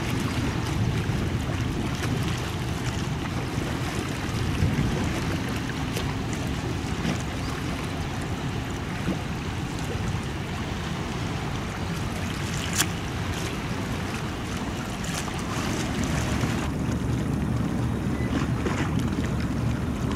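Wind on the microphone and water washing at the waterline, under a low steady drone from a passing car ferry. There is a single sharp click about 13 seconds in.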